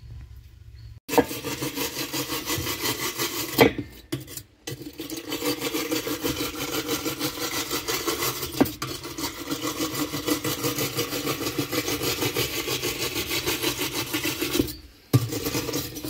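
Brass wire brush scrubbing the grimy metal drive hub around a washing machine's agitator shaft, in quick, even back-and-forth strokes. It starts about a second in and pauses briefly twice.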